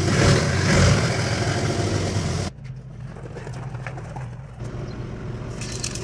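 Forklift engine running loudly and steadily, cut off abruptly about two and a half seconds in; after that a quieter engine idles steadily, with a few short high clicks near the end.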